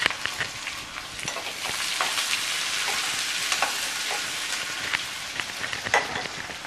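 Chopped small onions sizzling and crackling in hot oil in a nonstick kadai, with a few sharp knocks and scrapes of a spatula as they are stirred.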